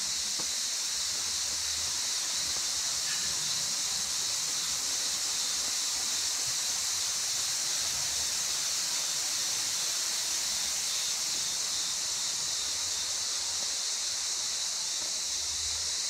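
A steady, high-pitched shrill of cicadas in the trees, unbroken throughout, over a softer rush of falling water from the waterfall.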